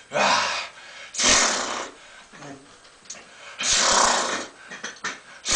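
A man's heavy, forceful breaths from the strain of lifting dumbbells: three loud breaths, one at the start, one a little over a second in, and one about four seconds in.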